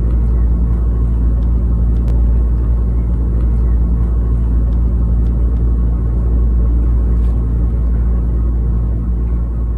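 Steady low rumble of a motor vehicle running, with a few faint clicks over it, easing off slightly near the end.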